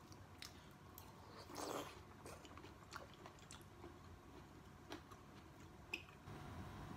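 Quiet chewing and mouth sounds of someone eating a soft piece of vegetable from sour shrimp soup. There are a few light clicks, and a brief louder burst of chewing about one and a half seconds in.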